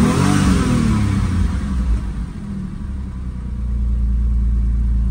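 Porsche 996 911 Targa's flat-six engine idling steadily, running normally now that the replaced immobilizer lets it start with no fault codes.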